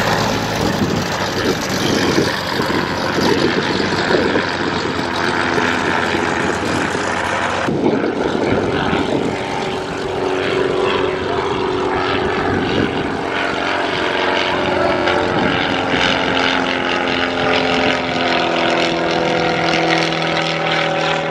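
Single-engine propeller plane, a high-wing Cessna, droning steadily past overhead. After an abrupt change about eight seconds in, an aerobatic biplane's engine and propeller rise and fall in pitch as it manoeuvres.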